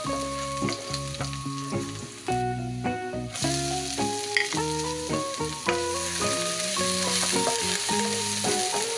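Minced garlic and chopped onion sizzling in hot oil in a nonstick pan while being stirred with a spoon; the sizzle drops out briefly about two and a half seconds in and is louder in the second half, once the onion is in. Background music of plucked notes plays along.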